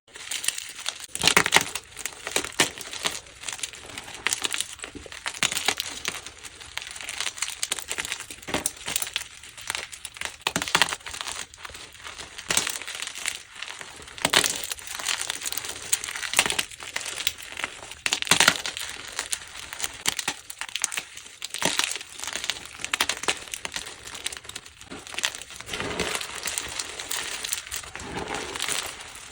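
Plain gym chalk blocks being crushed and crumbled, giving irregular crunchy, powdery crackles throughout.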